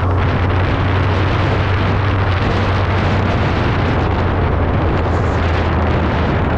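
Heavy wind rush on the microphone at highway speed, over the low, steady drone of a Suzuki Hayabusa's inline-four engine at an even cruise.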